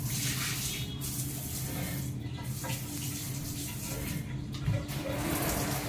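Water running from a tap and splashing as things are washed, coming in stretches, over a low steady hum.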